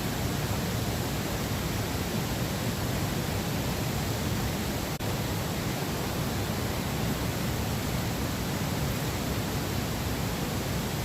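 Steady, even rushing noise with no clinks or knocks, dipping briefly about five seconds in.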